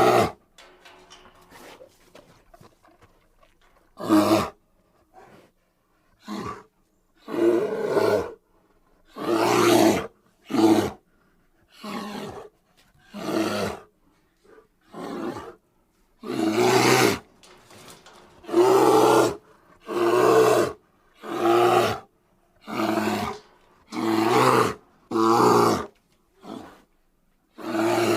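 Bear roaring over and over in short, loud calls of under a second each. There is a quieter stretch in the first few seconds, then the roars come about every second and a half.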